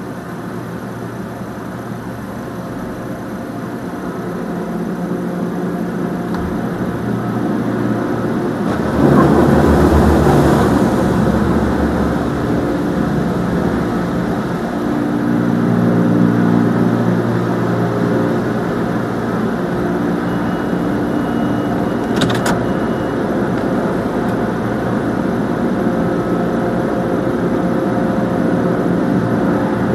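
Touchless automatic car wash heard from inside the car: a steady machine hum and water spraying over the glass and body. The sound builds gradually and the spray is loudest from about nine to twelve seconds in.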